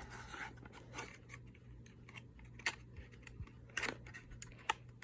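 Light handling noises: scattered small clicks and taps of a cosmetic jar and its packaging being handled, over a low steady hum.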